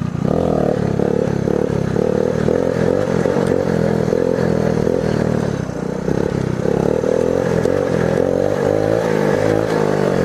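The small four-stroke single-cylinder engine of a 1979 Honda ATC 110 three-wheeler running as it is ridden, its pitch rising and falling with the throttle and easing briefly about six seconds in. It is picked up by a helmet-mounted mic.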